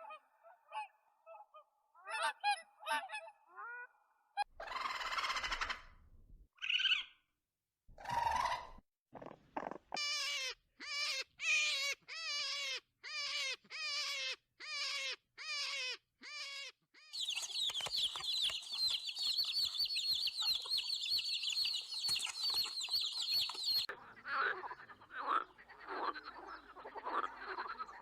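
A series of different animal calls, one clip after another: short honking calls first, then a couple of noisy bursts, a run of about a dozen evenly spaced calls each falling in pitch, a fast high trill lasting several seconds, and a rough pulsing chorus near the end.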